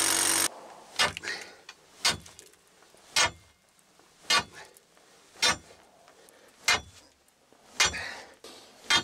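A long steel digging bar rammed by hand into a hard, almost limestone-like layer of sandstone, striking eight times about once a second, each hit a sharp clank with a short ring. An electric chisel hammer runs for the first half second, then cuts off.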